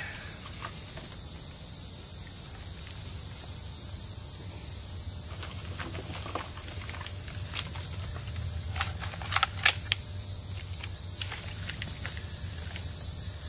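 Dry sticks clicking and cracking as they are piled onto a newly lit campfire, with a few sharp cracks about nine to ten seconds in, over a steady high-pitched insect chorus.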